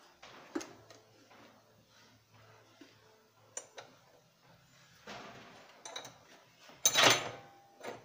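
Metal clinking and scraping as a metal puller's hooks are worked onto the hub at the bottom of a washing machine's stainless steel wash basket: scattered light clicks, with one louder metal clatter about seven seconds in.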